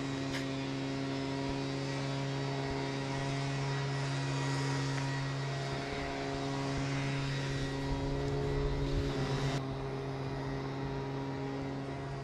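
A steady, low motor hum: an engine running at an even speed, over a faint rushing hiss that drops away near the end.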